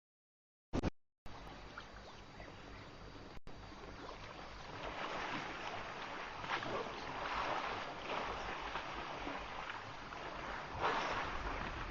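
Live-stream audio cutting out to silence for about a second, with one short blip, then even outdoor noise at a waterhole. The noise swells about five seconds in and again near the end.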